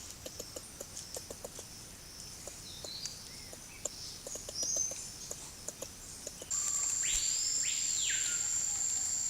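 Rainforest ambience of birds and insects: scattered faint ticks and a short bird chirp, then about two-thirds in a steady high insect whine starts suddenly, along with a call that sweeps up in pitch and back down.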